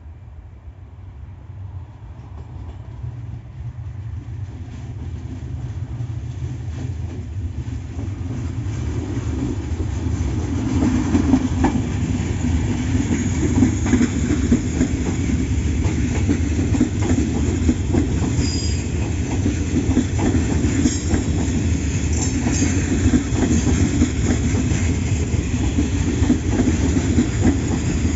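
A train approaching and passing close by, its wheels clattering over the rail joints. It grows steadily louder for about the first twelve seconds, then stays loud.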